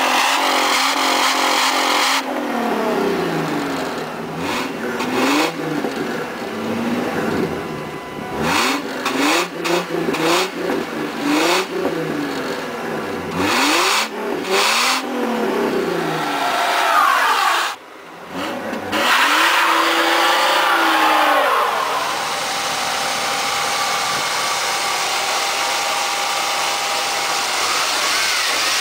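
Ford Mustang engine revved repeatedly, its pitch climbing and falling over and over, with a brief sudden dip about two-thirds of the way through. It then settles into a steady, even run near the end.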